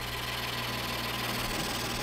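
Metal lathe running with a steady hum and hiss while a boring bar takes a light, hand-fed cut inside a cast-iron back plate.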